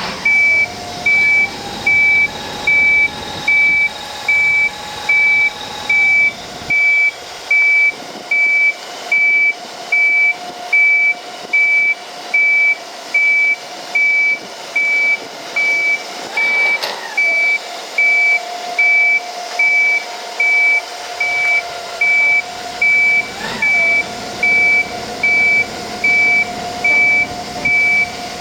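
Vehicle reversing alarm beeping steadily, about one beep a second, over a running engine.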